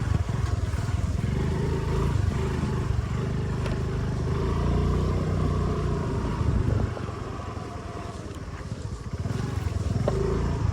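Motor scooter engine running under way on a rough dirt track. The sound drops back for a couple of seconds past the middle, then picks up again.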